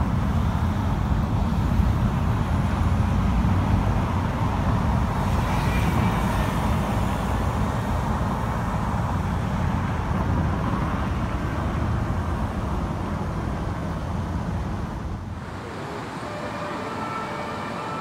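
Steady low rumble of city road traffic. Near the end the rumble drops a little and a faint emergency siren comes in.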